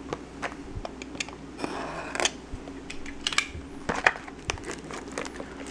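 Cellophane shrink-wrap on a small cardboard trading-card box crinkling and tearing as it is pulled open by hand, in short rustles mixed with scattered light clicks and taps of fingers on the box.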